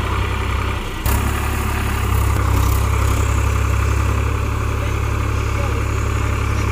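Massey Ferguson tractor's diesel engine running with a steady low drone, getting abruptly louder about a second in.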